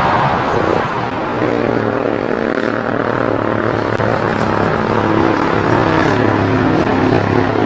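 Jet engines of a four-engined British Airways airliner running as it moves along the runway: a loud, steady noise with a few low, steady hums underneath.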